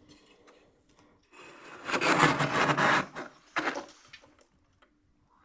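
Powdery freezer frost (snow ice) crunching: one dense, gritty crunch lasting about two seconds, then a shorter second crunch, with a few small clicks after.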